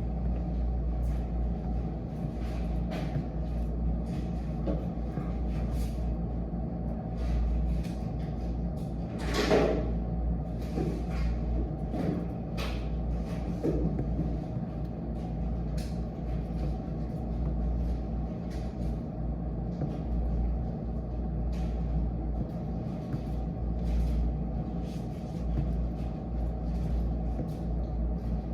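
Steady low background rumble with scattered light clicks and taps, and one louder knock about nine and a half seconds in.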